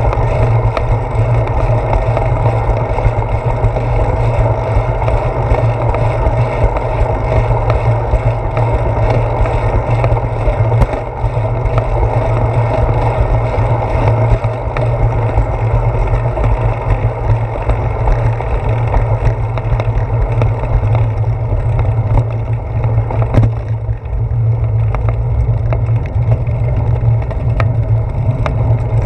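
Steady wind and road rumble from a bicycle riding along a paved path, heard through a GoPro camera mounted on the handlebars.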